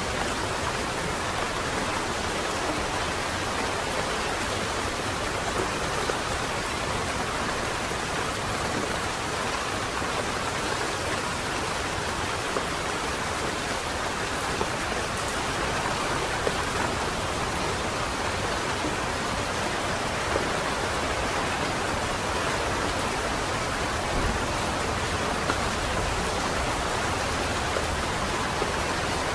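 Steady rain falling on a wet city street, an even hiss with scattered drop ticks.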